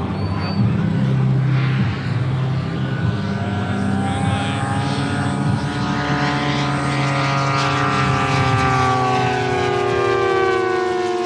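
The JetCat turboprop and five-blade propeller of a 1:3 scale Grob G 120TP RC model plane running in flight. It makes a steady drone, and its pitch falls slowly through the second half as the plane passes by.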